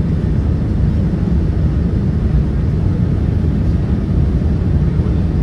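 Steady low rumble of engine and airflow noise heard inside the cabin of a Boeing 787-9 on final approach, from a window seat beside the engine.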